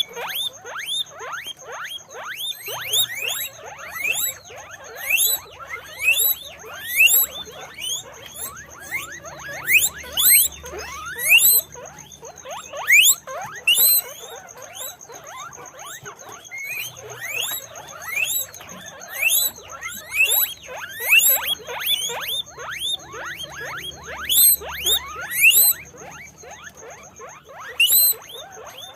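Guinea pigs wheeking: a rapid series of short, rising squeals, many overlapping one another, with brief lulls.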